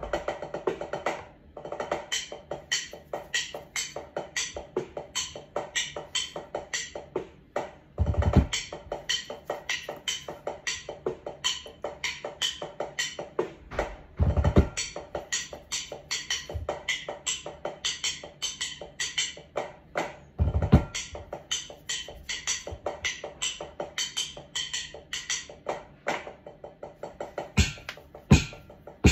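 Pipe band drum corps playing a drum fanfare: a fast, even run of snare drum strokes, with heavy bass drum hits about 8, 14 and 20 seconds in and several more near the end.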